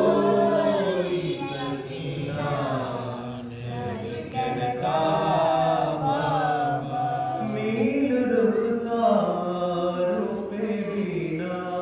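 A man singing an Urdu noha, a Shia mourning lament, unaccompanied into a microphone, in long melodic lines that rise and fall.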